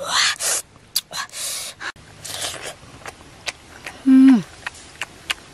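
Ripe jackfruit flesh being pulled apart and eaten: wet, hissing tears and smacks, scattered clicks of chewing, and a short hummed 'mm' about four seconds in that falls in pitch at its end and is the loudest sound.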